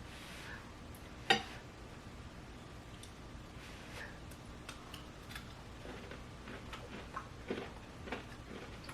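A sharp click about a second in, then scattered faint clicks and crunches: someone biting and chewing hot, crispy fried food.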